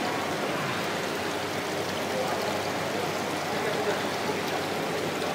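Water running and bubbling steadily in live-fish tanks, a continuous splashing hiss.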